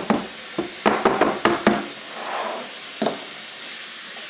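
Metal lid of a gallon paint can being knocked shut with a wire brush: a run of quick, sharp knocks in the first two seconds, then one more knock about three seconds in.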